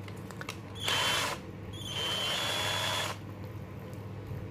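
Xenon XN-CDD505 cordless drill/driver run twice with an empty chuck: a short burst of about half a second, then a run of about a second and a half, each with a high motor whine.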